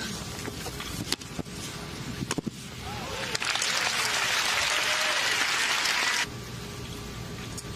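Tennis ball struck by rackets a few times in a rally, then crowd applause for about three and a half seconds that cuts off suddenly.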